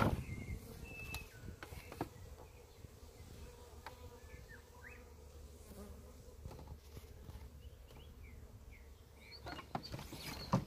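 Honeybees flying around the entrance of a Flow Hive, a faint steady buzzing hum.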